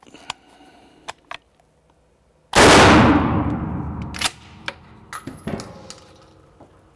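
A single shot from a 12-gauge Mossberg 590M pump-action shotgun firing 00 buckshot: one sharp, very loud blast with a long echoing tail of about a second and a half off the indoor range walls. Then a few sharp mechanical clacks as the gun is handled.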